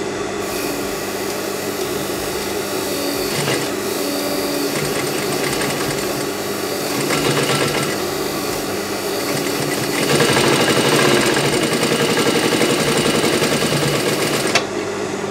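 Clutch-motor industrial sewing machine: the motor's steady hum, with the machine stitching slowly under a lightly pressed pedal and a hand easing the handwheel. The stitching gets louder about ten seconds in and stops suddenly near the end.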